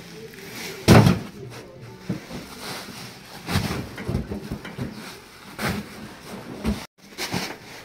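Full sacks of paddy being dropped and shoved onto the steel plate bed of a loader rickshaw: one loud thump about a second in, then several softer thumps and rustling of sacking.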